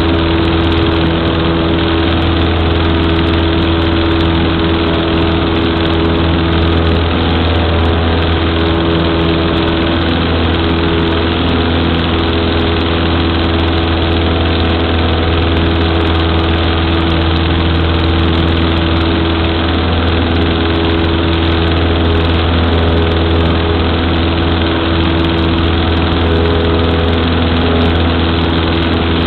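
Cessna 152's four-cylinder Lycoming O-235 engine and propeller running steadily, heard from inside the small cabin as a loud, even drone.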